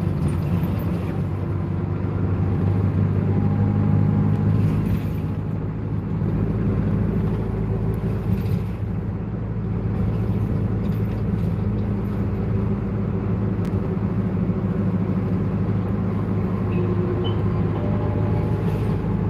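Bus engine and road noise heard from inside the passenger cabin, a steady low drone as the bus drives along.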